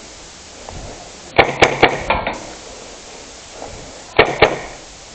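Airsoft guns firing single shots as sharp cracks: a quick string of four about a second and a half in, then two more about four seconds in.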